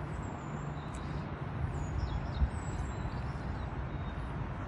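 Steady outdoor background rumble, with short high bird chirps several times over it.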